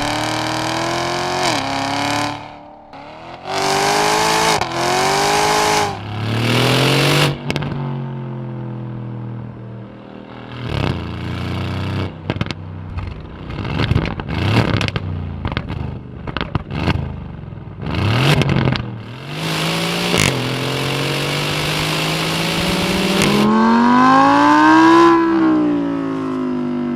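High-performance car engine revved hard again and again through a loud exhaust, its pitch climbing and falling with each rev. A run of sharp crackles and pops comes in the middle, then a long rising rev near the end.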